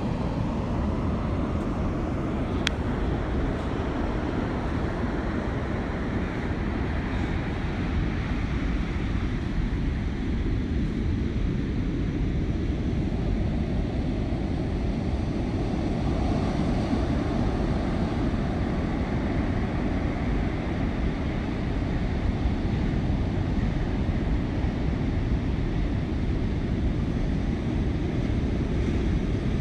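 Heavy surf breaking, heard as a steady low roar with wind rumbling on the microphone.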